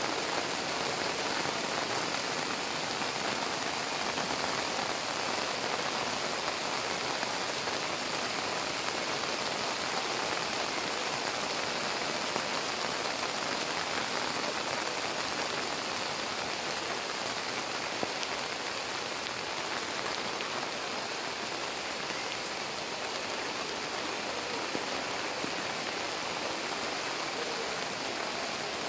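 Heavy rain pouring down onto a flooded street, a steady, even rush of water.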